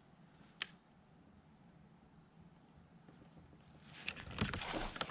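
Quiet, broken by a single sharp click about half a second in, then a busy run of clicks, knocks and rustling near the end as a rod and reel are cast from a fishing kayak.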